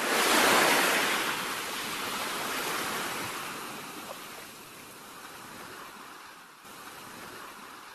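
Small waves washing up onto a sandy beach: a rush of surf that comes in loudest at the start, then slowly ebbs away.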